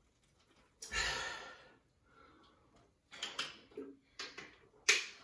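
A heavy breath out about a second in, then a run of light clicks and knocks.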